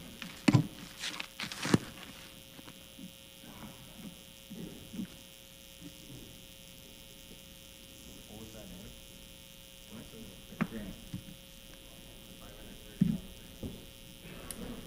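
Steady electrical hum from the sound system, with faint murmured voices and a few knocks, the two loudest close together in the first two seconds.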